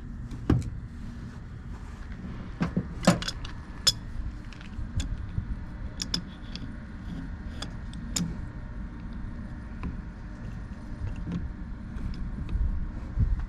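Scattered metallic clicks and clinks of hand tools on a semi-hermetic compressor's crank and housing, as a screwdriver is jammed in to stop the crankshaft turning so a stuck bolt can be loosened. The loudest knocks come about three seconds in, over a low rumble.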